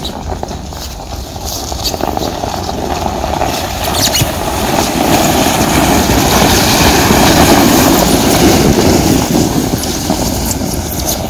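Several sleds sliding over packed snow, a steady scraping rumble that swells as they come close and pass about halfway through, then fades as they run on down the street.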